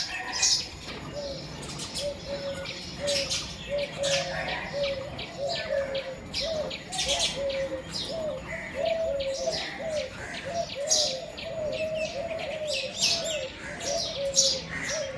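Doves cooing in a low, wavering run that hardly breaks, while small songbirds give many short, high chirps over it.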